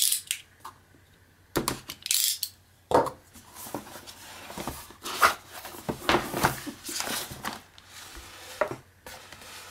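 Utility knife slicing through the tape seal on a cardboard box, followed by cardboard flaps scraping open and plastic-bagged contents rustling and clicking as they are handled.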